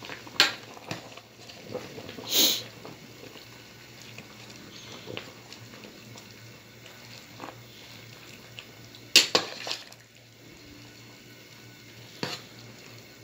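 Margok stew simmering in an aluminium pot, a soft bubbling over a steady low hum, with about four sharp clinks against the pot spread through it.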